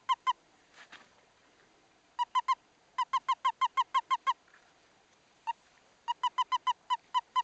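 Western toad held in the hand giving its release call: runs of quick, high chirps, about seven a second, in bursts at the start, twice near the middle and again near the end, with a single lone chirp between.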